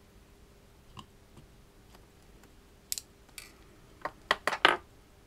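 Small metal hand tools clicking against a Bulova Accutron 214 watch movement: a faint tick about a second in, two sharp clicks around three seconds, then a quick run of four or five louder clicks near the end.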